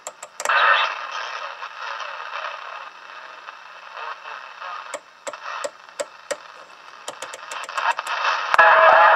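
Cobra 29 LTD ST CB radio receiving static and hiss as its channel selector is turned through the channels, with scattered clicks. Near the end a much louder signal comes in with a steady whistling tone.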